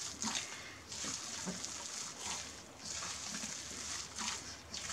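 Soft, sticky yeast dough squelching and squishing irregularly as it is squeezed and kneaded by hand in a stainless steel bowl, working in raisins and currants.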